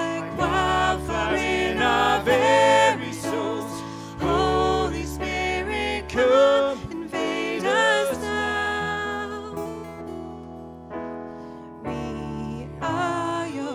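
Live worship song: a man singing to acoustic guitar with keyboard accompaniment. The sung phrases give way about eight seconds in to a held chord that fades, and the singing comes back near the end.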